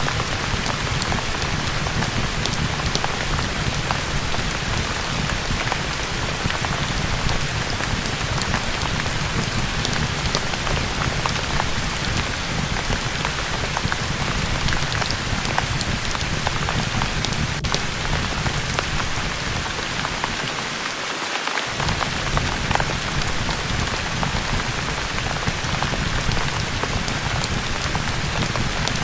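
Steady heavy rain mixed with a fireplace, with sharp crackles scattered through the hiss. About two-thirds of the way through, the low rumble briefly drops out and then returns.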